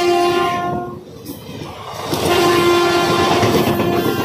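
WAP-4 electric locomotive's horn sounding as the train passes at speed, its pitch dropping slightly, cutting off about a second in, then a second blast from about two seconds in. Under it the coaches rush past with a steady rolling rattle of wheels on rail.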